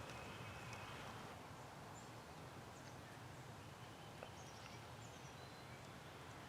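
Quiet woodland ambience: a faint hiss with a few faint, short, high bird chirps scattered through it.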